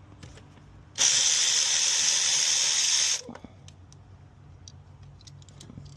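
A loud, steady hiss that starts about a second in and cuts off sharply about two seconds later, like a jet of spray or air.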